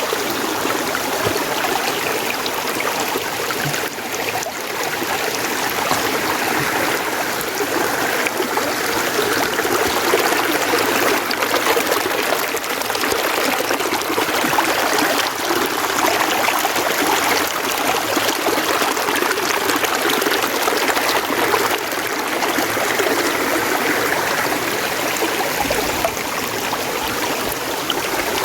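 Mountain stream flowing steadily, a continuous rush and trickle of water.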